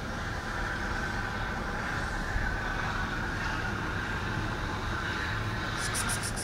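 Steady rumble of distant road traffic. Near the end a rapid, high-pitched ticking starts, about eight pulses a second.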